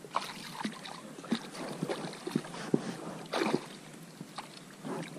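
Hooked pike thrashing at the lake surface as it is drawn in by hand on the line: a run of irregular sharp splashes, with a longer, louder flurry a little past the middle.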